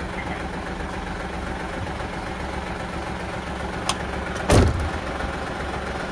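Hino Profia tractor's diesel engine idling steadily, with a short click just before four seconds in and a loud clunk about half a second later, while the trailer is being uncoupled.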